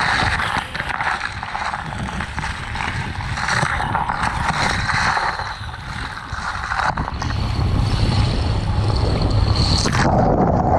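Strong wind blowing across the microphone, a steady rushing noise that gets heavier and deeper in the second half and breaks off abruptly near the end.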